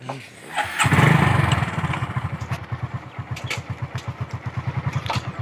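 Motorcycle engine catching about a second in, then idling with an even, fast putter, with a few sharp clicks over it.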